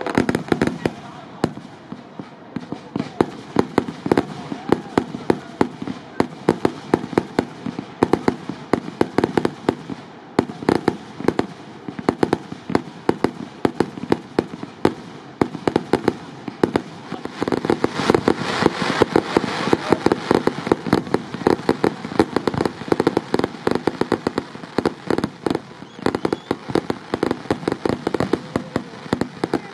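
Fireworks display: a rapid, continuous barrage of aerial shell bursts, bangs and crackling, heaviest a little past the middle.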